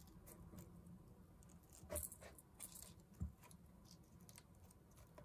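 Near silence with faint handling sounds as a ribbon bow is pressed onto a paper craft piece: a few light clicks, the clearest about two seconds in, and a soft low knock a little after three seconds.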